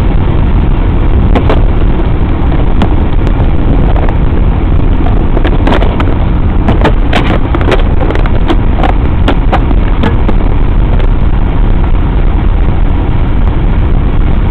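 Steady road and engine noise inside a car's cabin cruising at highway speed, about 60 mph. A scattering of light clicks sounds through the middle of the stretch.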